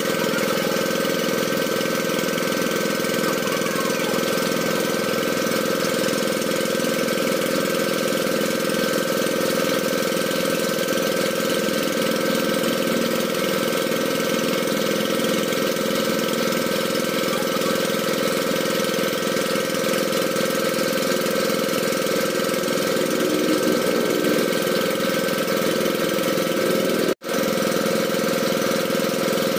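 Small engine running steadily at a constant speed, with a brief break about 27 seconds in.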